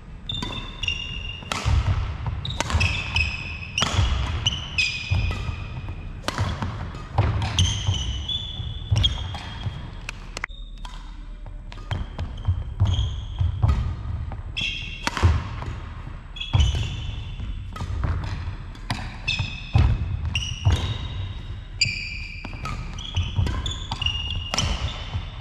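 Badminton rally: sharp racket strikes on the shuttlecock about once a second, with sports shoes squeaking and feet thudding on a wooden hall floor, and a short lull about ten seconds in.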